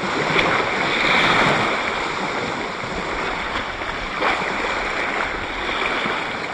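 Steady rush of wind and lapping water, a little louder about a second in.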